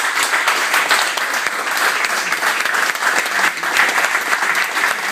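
Spectators applauding: dense, continuous clapping.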